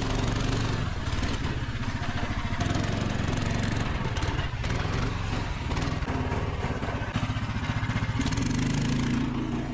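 A Snow Dog tracked snow machine's small gasoline engine running steadily under way, with a fast, even firing beat.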